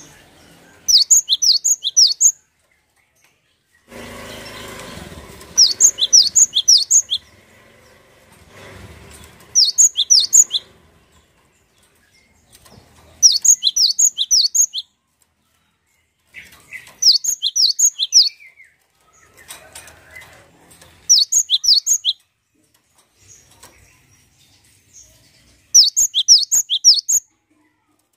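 Cinereous tit (gelatik batu) calling in seven short bursts, each a quick run of sharp, high notes lasting about a second and a half, repeating every four seconds or so. A softer rustle comes about four seconds in.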